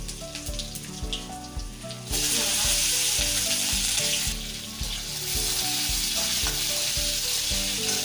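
Chopped garlic dropped into hot oil with cumin in a kadai, sizzling as it starts to fry. The sizzle starts abruptly about two seconds in, eases for a moment near the middle, then picks up again.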